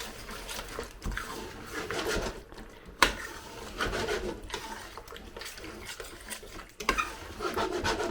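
A utensil stirring chicken curry in a pan, scraping and clicking against the pan, with a sharp knock about three seconds in and another near the end.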